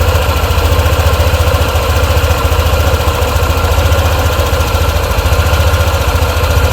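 Honda ADV 150 scooter's single-cylinder engine idling steadily with an even, regular pulse.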